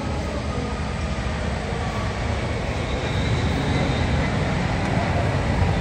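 Jet airliner engines rumbling steadily and growing slightly louder, with a faint high whine coming in about halfway.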